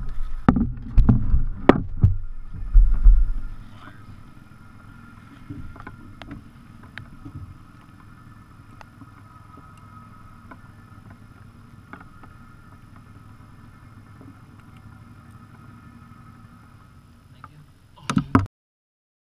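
Loud knocks and thumps of a fish and landing net being handled on a boat deck right by the microphone, then a steady low hum with scattered small clicks. A short burst of knocks comes near the end before the sound cuts off suddenly.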